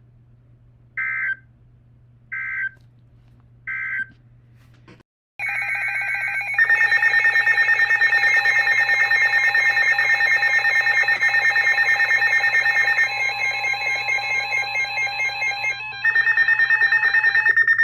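NOAA Weather Radio alert signalling: three short electronic data bursts about 1.3 seconds apart, the SAME end-of-message code closing one broadcast. After a brief silence comes a long, loud electronic alert tone lasting about twelve seconds, which changes pitch partway through and marks the start of the next warning.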